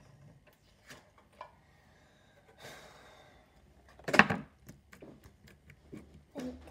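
Objects handled on a tabletop: scattered light clicks and knocks, a short rustle just before three seconds in, and one loud knock about four seconds in as a container is put down on the table.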